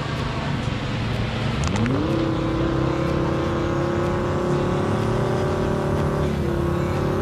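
Off-road 4x4's engine revved up sharply about two seconds in and held at high revs for about five seconds, then dropping back near the end.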